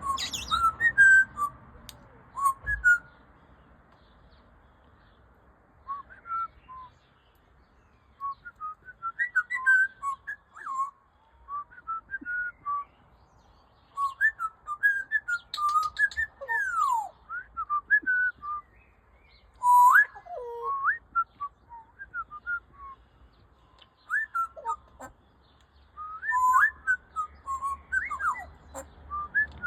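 Pet parrot whistling: runs of short whistled notes and sliding swoops, in bursts with pauses of a few seconds between them.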